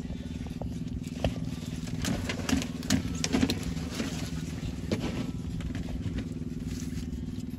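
A small engine runs steadily underneath with a low droning hum. Over it come short knocks, crunches and crackles from a whole roast duck being cut and torn apart with a cleaver, most of them in a cluster about two to three and a half seconds in and one more near five seconds.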